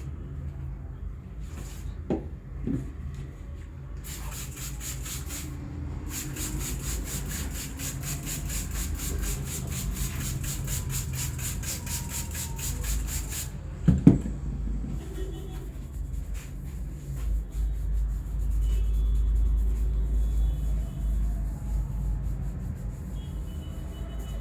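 Hands or a massage tool rubbing on skin and hair during a head and neck massage, in fast, even strokes through the first half, then one sharp crack a little past halfway, the loudest sound, over a low steady background rumble.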